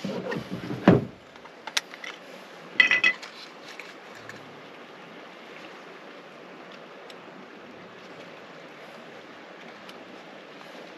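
A small folding camera drone and its gear being handled on a truck's plastic tailgate: a few dull knocks in the first second, a single click, then a quick cluster of hard plastic clicks and clatter about three seconds in, over a steady background rush.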